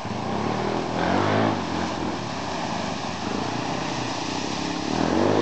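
1989 Ford Bronco's 302 V8 engine revving as the truck churns through a muddy puddle, rising in pitch about a second in and again near the end.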